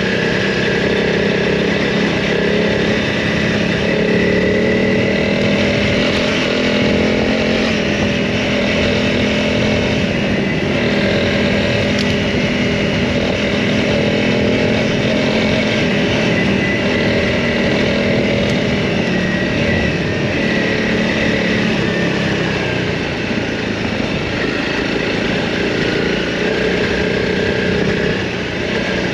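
Honda CRF 300 Rally's single-cylinder four-stroke engine running steadily under way; its pitch drops for a few seconds about two-thirds of the way through as the bike eases off, then climbs again near the end.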